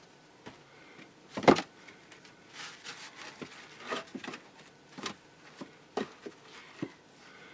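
Scattered knocks and clatters of things being handled, the loudest about a second and a half in, with smaller ones spread through the rest.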